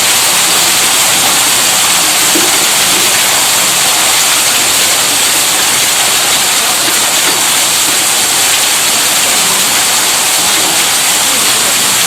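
Electric tube well pump running, a steady, even rushing of water with no audible hum or change.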